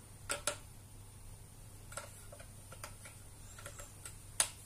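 A scattering of light clicks and taps, about seven at irregular intervals, the loudest near the end, over a faint steady low hum.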